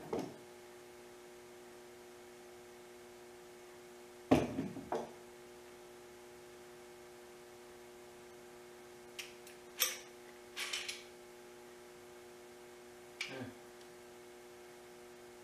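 Bar clamps being handled and tightened on glued-up boards: a few sharp knocks and clacks, the loudest about four seconds in, and a run of quick clicks around ten seconds in, over a steady hum.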